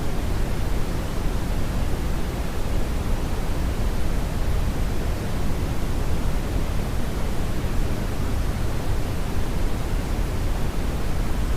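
Brownian noise: a steady, even rushing hiss weighted heavily toward the low end, with no change throughout.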